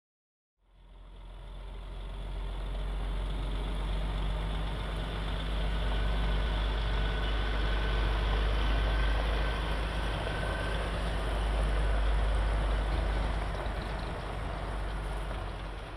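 Heavy diesel truck engine running steadily with a deep low rumble. It fades in about half a second in.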